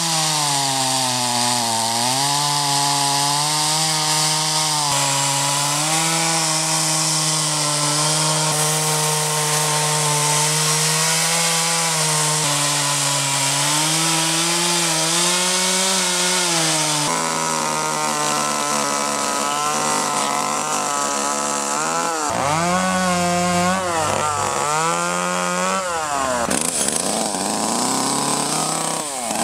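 Small gas two-stroke carving chainsaw running as it cuts into ash wood, its engine pitch sagging and rising with the cut. Near the end the throttle is revved up and down in quick swoops. The sound jumps abruptly several times.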